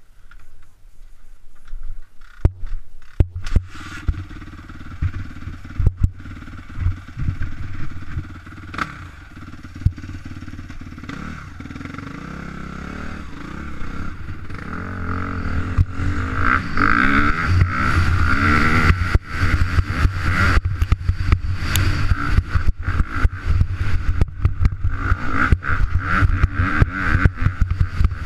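2013 Suzuki RM-Z250 four-stroke single-cylinder motocross bike running at low revs. Over the second half it gets louder as it accelerates along the dirt track, with the revs rising and falling through the gears.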